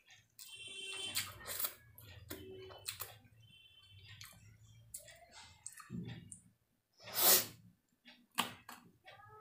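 Close-miked eating sounds: chewing and wet mouth clicks from a person eating fried rice and spicy chilli chicken. There is one louder, brief noise about seven seconds in.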